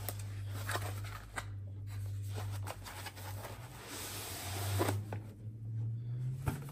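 A cardboard box being opened by hand and white foam packing sheets slid out of it: scattered light clicks and paper-like rustling, with a longer rustle about four seconds in, over a low steady hum.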